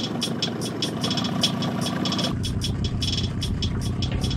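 Two-stroke Yamaha outboard motor idling as the jon boat creeps along at low speed. A heavier low rumble comes in a little over two seconds in.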